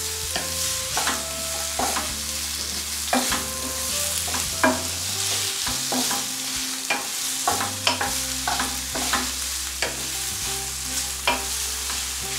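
Sliced onions and garlic frying in olive oil, with a steady sizzle, while a wooden spatula stirs them, scraping and knocking against the pan at irregular intervals.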